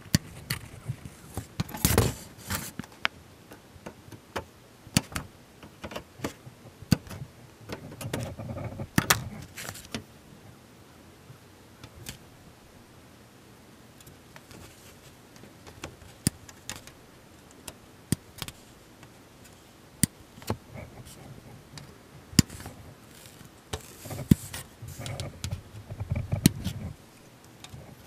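Small plastic kit parts and hobby tools handled on a workbench: scattered sharp clicks and taps with brief rustling, busier in a few short stretches.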